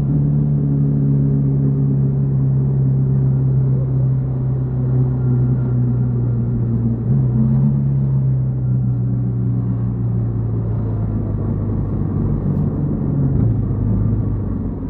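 Yamaha XTZ 150 Crosser S motorcycle's single-cylinder engine running at a steady cruise on the road, its note easing down slightly near the end as the bike slows.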